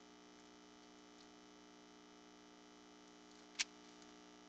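Near silence with a faint steady hum and a single short click about three and a half seconds in.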